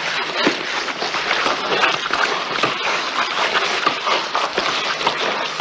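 A group of soldiers crawling on their bellies through wet mud with rifles: a dense, steady scuffling and scraping, full of small knocks and rustles.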